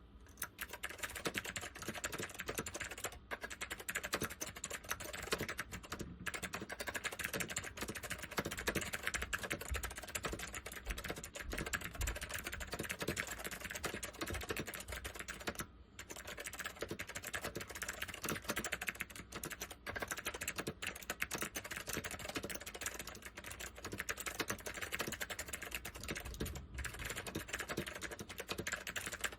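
Fast, continuous typing on a Northgate OmniKey 101 mechanical keyboard with waxboiled SKCM white Alps switches: dense clacking keystrokes with a few brief pauses.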